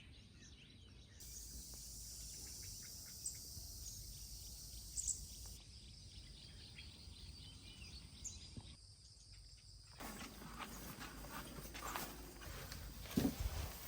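Outdoor rural ambience with insects buzzing and a few bird calls, changing abruptly at several cuts. There are a few sharp clicks, and a louder thump near the end.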